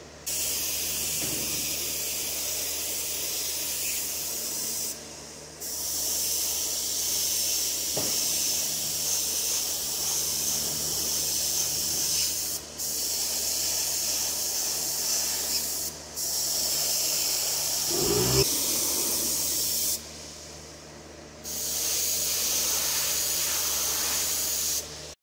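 Gravity-feed airbrush spraying paint in long, steady hissing bursts. It cuts off briefly about five seconds in and again for about a second and a half near the end. A short, soft knock comes about two-thirds of the way through.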